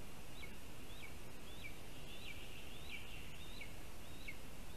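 A bird giving a series of short, high calls, each a quick rise and then a sharp downward slur, about one and a half calls a second, over a steady high background hiss of the forest.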